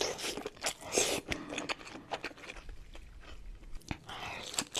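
Close-miked eating sounds of a crab seafood boil: chewing with wet clicks, smacks and crunches, in quick irregular bites.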